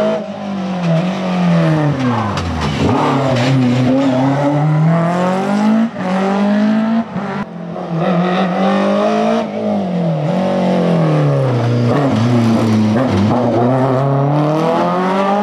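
BMW E30 M3 rally cars' four-cylinder engines revving hard as they pass, the engine note climbing and then dropping sharply several times with gear changes and lifts off the throttle.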